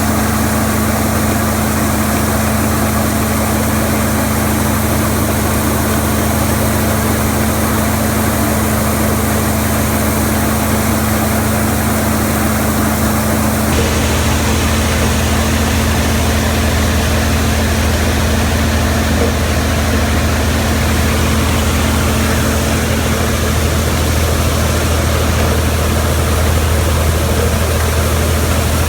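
Large farm diesel engine running steadily, a loud constant low drone with a steady hum. About halfway through, the sound changes abruptly to a slightly different engine drone.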